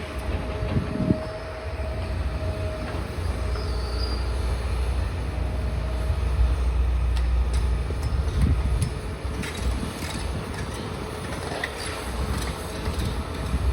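Demolition excavator working: a steady low diesel rumble with a faint whine. Clicks, cracks and clatters of breaking debris come more thickly in the second half.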